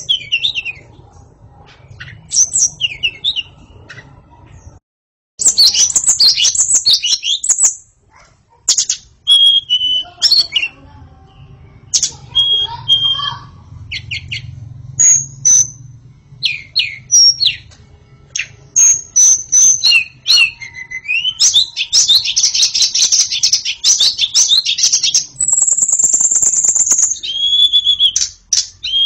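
White-rumped shama singing a continuous, varied song of whistles, chirps and rapid trills, with a dense buzzy stretch about three-quarters of the way through and a long high whistle just after it.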